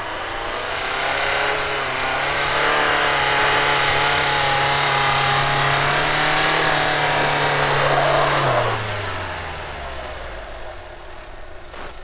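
Dacia Duster's engine revving hard and held at high revs as it pushes up a snowy slope under load. About eight and a half seconds in, the revs drop away steeply.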